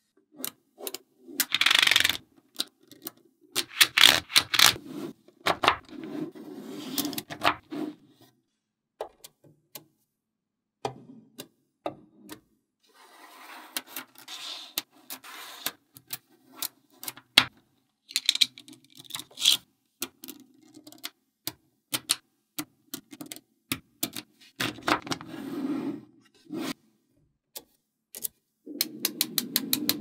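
Small metal magnetic balls clicking and snapping together as strands of them are handled and joined, in irregular bursts of sharp clicks with stretches of rubbing and rolling noise between them.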